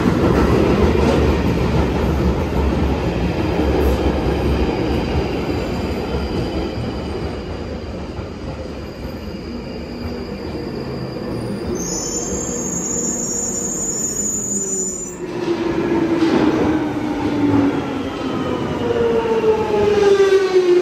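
London Underground train running into the station: a heavy rumble of wheels on rail that slowly eases, then a high squeal for a few seconds past the middle that cuts off suddenly. Near the end a whine falls steadily in pitch as the train slows.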